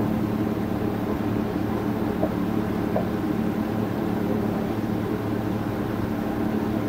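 Steady, unchanging low machine drone with a constant hum, like an engine or motor running.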